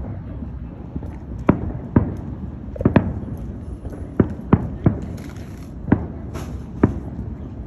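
Aerial fireworks shells bursting: a string of sharp bangs at irregular intervals, about one or two a second, two of them coming close together about three seconds in.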